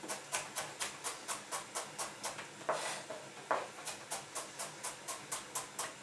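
Kitchen knife cutting a parsnip into thin sticks on a plastic cutting board: quick, even chopping strokes at about four a second, with two heavier knocks near the middle.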